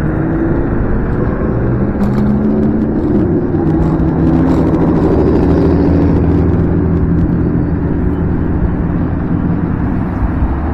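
Riding noise from a Nanrobot D6+ electric scooter under way: a loud, continuous rush of wind and road noise, with low steady tones that rise a little about two to four seconds in.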